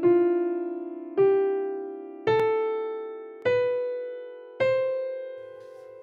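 Closing music: five single struck keyboard notes with a piano-like tone, about one a second, each a step higher than the last, the last one left ringing.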